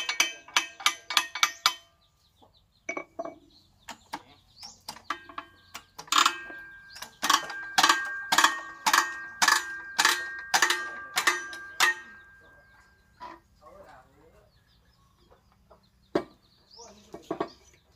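Homemade lever press ramming powder into small firework rocket tubes: a run of sharp metal-on-metal clanks with a ringing note. They come about four a second at first, louder and about two a second through the middle, then fainter and scattered near the end.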